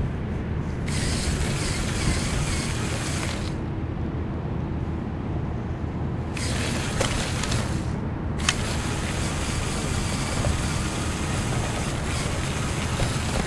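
The drivetrain of a LEGO Technic remote-control car, two Power Functions L-motors driving through a gear reduction, whirring in spurts that start and stop several times, with the plastic chassis rattling and clicking as it rolls over asphalt and brick pavers.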